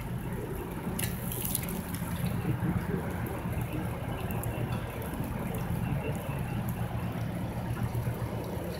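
Steady wet rain-and-sleet hiss with scattered drops ticking, over a low steady rumble.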